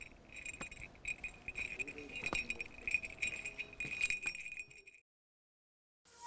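Small bell jingling steadily with a few light clicks, stopping suddenly about five seconds in.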